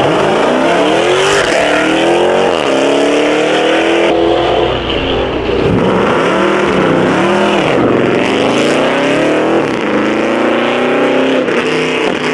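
A car engine revved hard several times, its pitch climbing and falling again and again.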